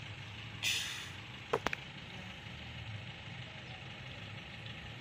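Steady low background hum, with a short rustle a little under a second in and a couple of sharp clicks about a second and a half in: handling noise as the phone is moved and its lens covered.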